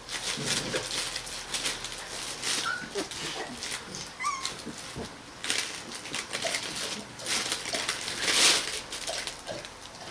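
Three-week-old Rottweiler puppies squeaking and whimpering briefly a few times as they move about, over irregular shuffling and rustling, with a louder burst of noise near the end.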